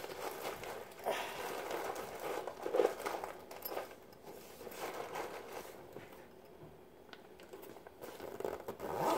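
Plastic snack packaging crinkling and rustling in irregular bursts as food is packed into a lunch bag; the rustling dies down for a couple of seconds past the middle, then picks up again near the end.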